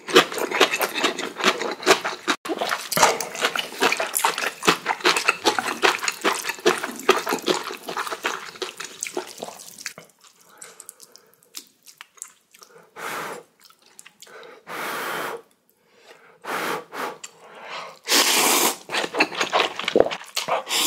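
Instant ramen noodles being slurped and chewed close to the microphone: dense, wet, crackly slurping for about ten seconds, then quieter, with a few separate short slurps, the loudest near the end.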